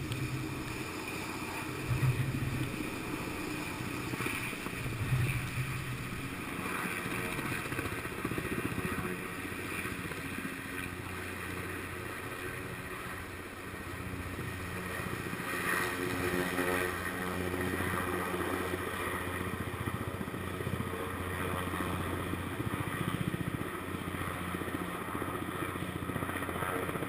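Sikorsky S-58 helicopter flying overhead and moving away, its rotor and engine making a continuous low drone that dips around the middle and settles into a steadier hum in the second half.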